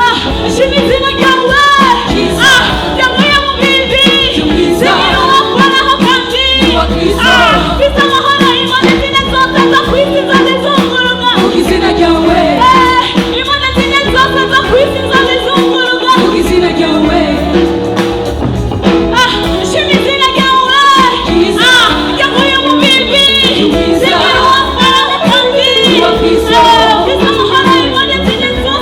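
Gospel song: a woman singing over loud, continuous backing music.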